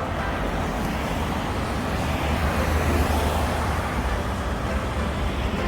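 Steady low rumble of wind buffeting the microphone and road noise while cycling.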